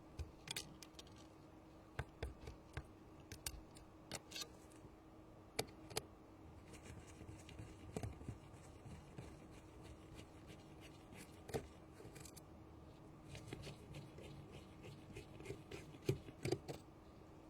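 Small hand tools clicking, tapping and scraping against a phone's parts during hands-on repair work: irregular sharp clicks with short scrapes, coming more thickly in the second half.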